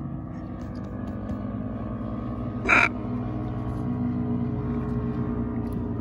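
Dirt bike engines running in a steady drone, with one short, loud squawk from a macaw a little under three seconds in.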